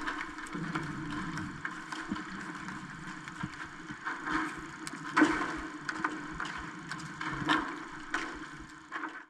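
Underwater sound picked up by a camera in its waterproof housing: a steady hum and hiss with scattered clicks and knocks, the loudest knock about five seconds in.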